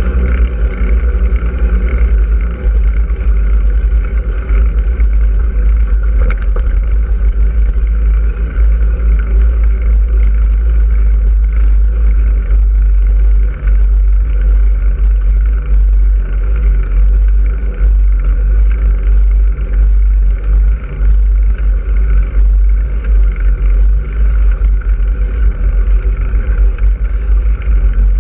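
Heavy, steady wind rumble and road noise on a low-mounted action camera moving along a road, with small rattles throughout.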